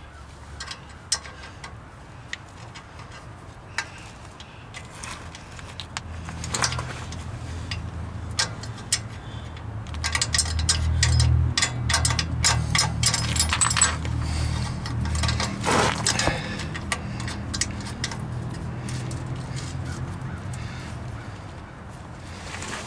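Light metallic clicks and clinks of a wrench and clamp hardware as the clamp on a new exhaust resonator pipe is fitted and its nuts worked up under a car. A low steady hum comes up a few seconds in, is loudest around the middle and fades near the end.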